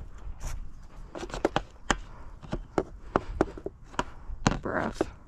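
Irregular light clicks and knocks, several a second, with a short rustling noise about four and a half seconds in.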